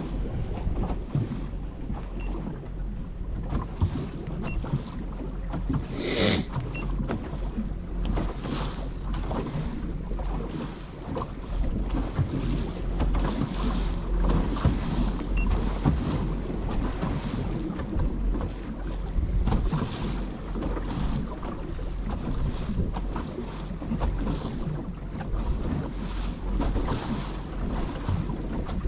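Wind on the microphone and water lapping against the hull of a small boat on open water, with a steady low rumble and a sharp sound about six seconds in.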